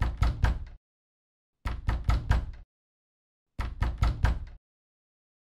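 Three quick runs of heavy knocks, about four knocks each, spaced about two seconds apart.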